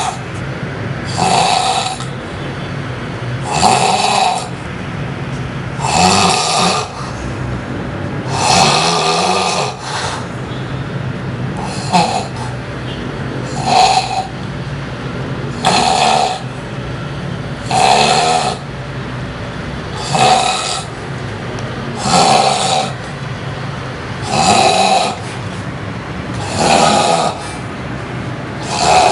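A sleeping person snoring loudly, one snore about every two seconds.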